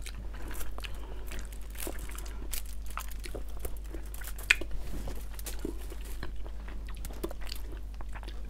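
Close-miked chewing and biting of food eaten by hand, a scatter of small crunchy clicks, with one sharper crunch about four and a half seconds in.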